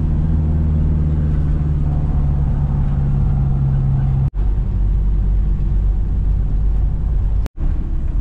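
Steady low drone of a Toyota HiAce Commuter diesel van's engine and road rumble heard inside the cab while driving, with two brief dropouts where the sound cuts.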